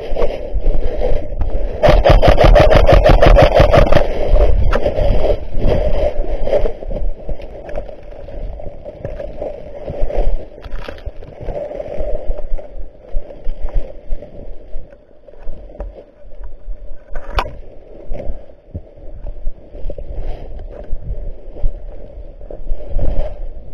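Scraping and rustling movement noise, with a loud, fast rattle of clicks lasting about two seconds starting about two seconds in, and one sharp click later on.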